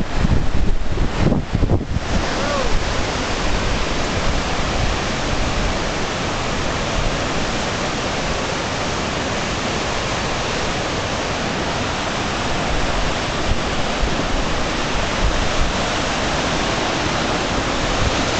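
Muddy river in spate from torrential rain, its floodwater rushing past in a loud, steady rush of water. For the first two seconds or so, wind gusts buffet the microphone over it.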